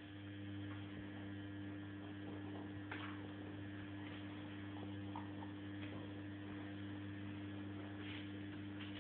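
A steady low electrical hum switches on at the start and cuts off near the end, with a few faint light taps over it.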